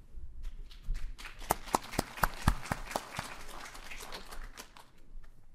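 Audience applause: many hands clapping, a dense patter with a few sharp claps standing out, swelling in the first seconds and dying away near the end.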